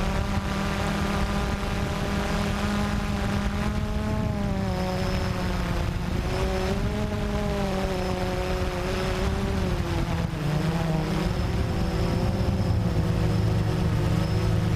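Blade 350 QX3 quadcopter's motors and propellers running in flight, heard from its onboard camera: a whine of several pitches over a low hum, wavering and dipping a few times as the motors adjust speed.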